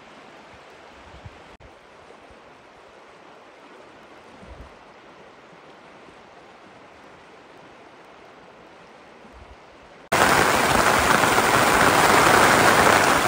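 Rain falling, quiet and steady at first. About ten seconds in it switches abruptly to much louder, close rain hitting a surface.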